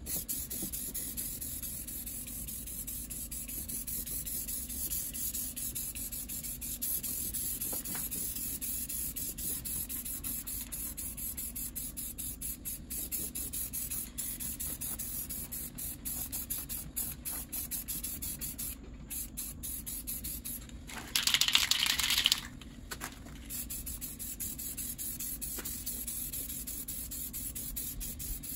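Aerosol spray paint can hissing steadily as black paint is sprayed on, with a few brief breaks between passes. About 21 seconds in there is a louder noise lasting a second or so.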